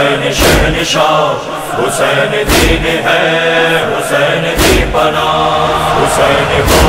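Noha recitation: men's voices chanting held notes over rhythmic matam, hands striking the chest about once a second with a heavier beat roughly every two seconds.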